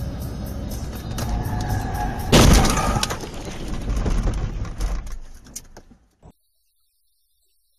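Car collision heard from inside the car through a dashcam: steady road noise, then a sudden loud crash about two and a half seconds in. The noise trails off and cuts to silence about six seconds in.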